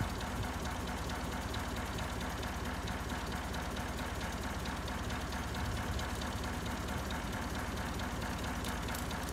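Old Volvo wheel loader's diesel engine idling steadily, with a few faint clicks near the end.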